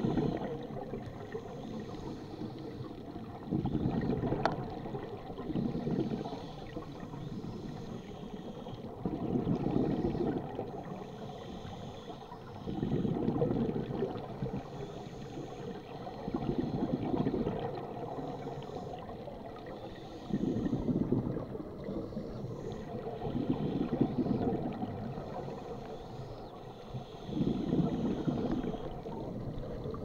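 Scuba diver breathing through a regulator underwater: a gurgling rush of exhaled bubbles about every three to four seconds, with a fainter hiss of each inhalation between them. A single sharp click about four and a half seconds in.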